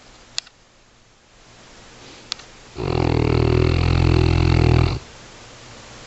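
A sleeping Neapolitan mastiff snoring: one long, deep snore of about two seconds, starting about three seconds in.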